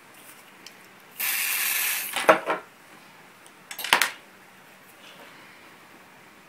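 A plastic syringe and blood-collection tubing handled by hand: a steady noisy rasp lasting about a second, then a few sharp plastic clicks, with a last quick cluster of clicks about four seconds in.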